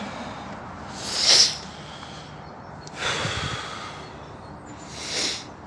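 A person breathing hard through the nose close to the microphone, three times, the first loudest, over a steady low hiss.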